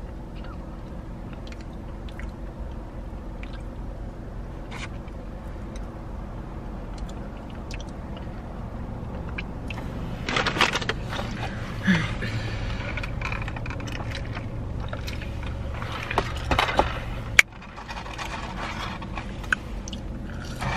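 Handling and eating fast food: rustling and scraping of packaging and chewing, busier in the second half, over a steady low hum inside the car. A sharp click comes near the end, after which the hum drops.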